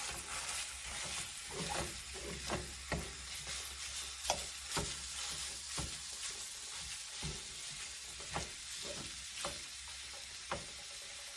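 Ground beef sizzling in a hot skillet as it starts to brown, while a fork breaks it apart, with irregular clicks and scrapes of the fork against the pan.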